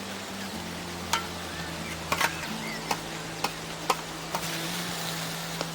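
A series of sharp, irregular clicks, about eight in all, over a steady low background.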